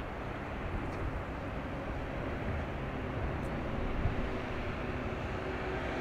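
Steady low rumble with a faint continuous hum, typical of a large ship's engines running under way.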